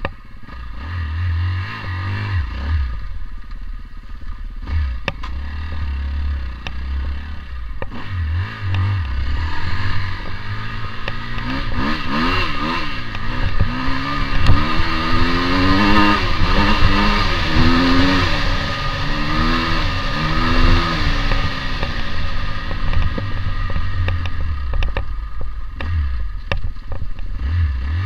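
KTM 250 EXC two-stroke enduro motorcycle engine being ridden, the revs rising and falling again and again through the middle stretch as the throttle is worked, with clattering from the bike over the rough ground.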